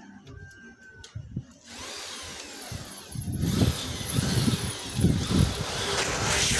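A power tool on the building site starts running about two seconds in, a steady high whine over a hiss, with gusts of wind buffeting the microphone from about halfway through.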